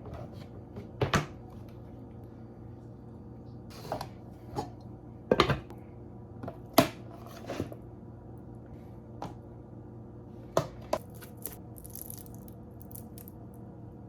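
Kitchen clatter as leftovers are packed into a lunch: scattered knocks and clicks of dishes, containers and utensils being handled, over a steady low hum.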